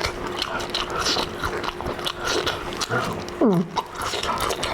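Close-miked chewing and biting of crunchy food, with many short crisp crunches. A short falling vocal sound comes about three and a half seconds in.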